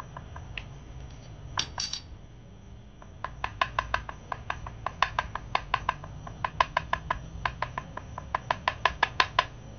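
Two sharp clinks about a second and a half in. Then, from about three seconds in, a fast run of light clicks with a brief metallic ring, about five a second, going on for several seconds.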